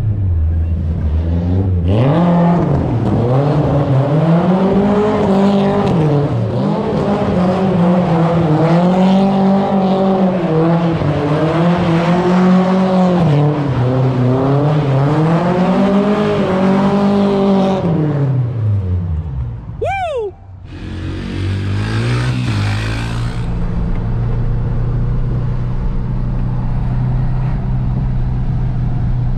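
Nissan 240SX engine revving hard, its pitch rising and falling every second or two as the car is driven around a gravel lot. Around twenty seconds in there is a brief fast falling sweep, after which a steadier, lower engine drone of a GC8 Subaru Impreza with a Stromung cat-back exhaust cruising takes over.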